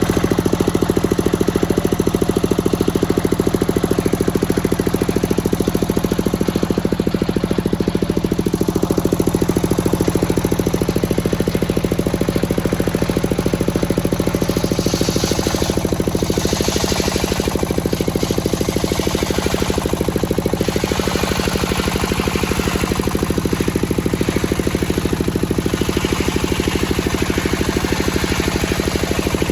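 Engine of a circular sawmill running steadily with a fast, even pulse. From about halfway through, several separate bursts of higher hissing sound join it.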